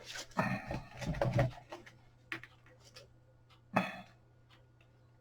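Handling noise from camcorders being moved about in the hands: soft rubbing and a few short clicks and knocks, two sharper ones in the second half.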